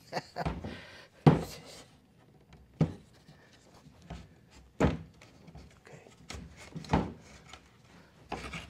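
Wooden beehive frame parts knocking and clicking against a wooden assembly jig as they are fitted in by hand: four sharp knocks a second or two apart, the loudest about a second in, with lighter clicks between.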